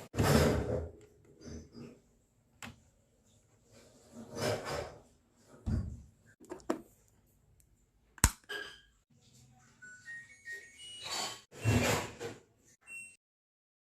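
Irregular thuds, knocks and clicks, as of things being handled and set down in a small room, with a few short high tones stepping up in pitch near the end.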